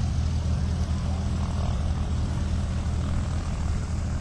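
Propeller airplane's piston engine droning steadily.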